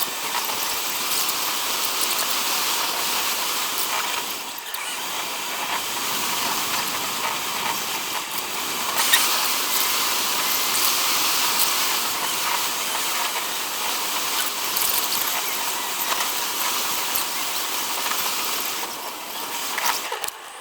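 Steady high-pitched hiss of road and wind noise from a moving car, thin with little low end, with a short dip about four seconds in.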